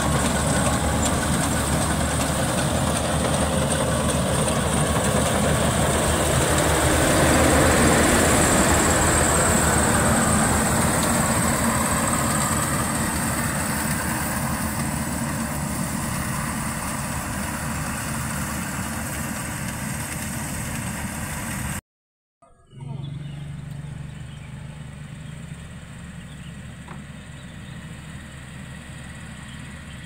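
Maxxi Bimo 102L rice combine harvester running steadily while harvesting rice, loud and close. About two-thirds of the way through the sound drops out for a moment. Then the combine is heard again, quieter and farther off.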